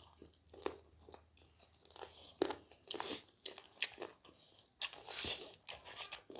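A person chewing and biting crunchy food, with irregular crunches and a louder crunching stretch about five seconds in.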